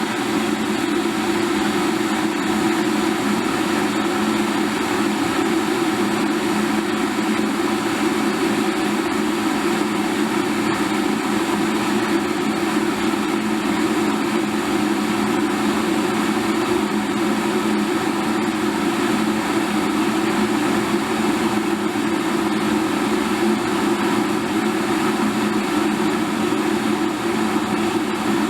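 Electric kettle boiling water: a steady rumbling rush of bubbling and hiss that holds even throughout.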